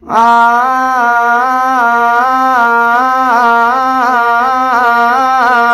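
Harmonium and voice practising a two-note alankar, going back and forth between dha and ni, sung on an open 'aa', steady at first and then with quicker turns from about three seconds in.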